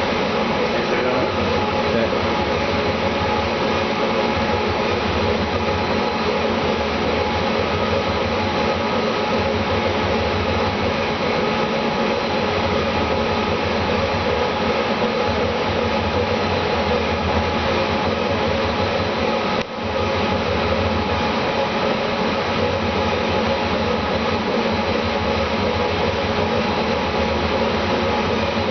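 Steady machine drone with several held tones, and a low throb that comes and goes every few seconds; it drops out briefly about twenty seconds in.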